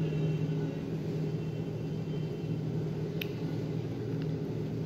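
A steady low hum in a room, with a single short click about three seconds in.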